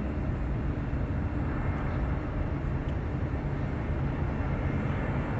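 Steady low rumble of airport noise: distant jet airliners on approach to land, blended with road traffic below.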